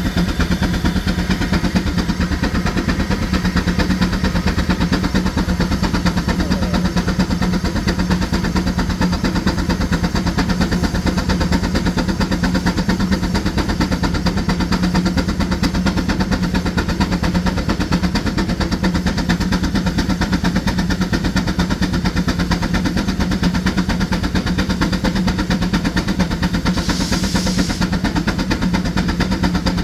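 Frick Eclipse steam traction engine running steadily under load, belted to a dyno. A brief hiss sounds near the end.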